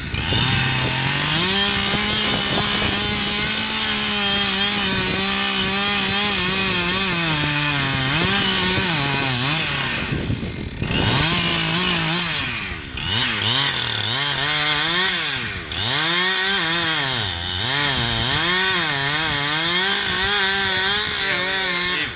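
Two-stroke chainsaw cutting through a tree trunk in a felling cut. It runs at a steady high pitch for the first several seconds, then the pitch repeatedly sags and climbs again as the chain bogs in the wood and the throttle is worked, before it eases off at the very end.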